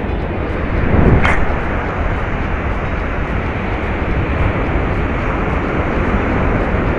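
A surf-casting rod swung hard for a long cast, a rising whoosh about a second in, over a steady rush of wind on the microphone and breaking surf.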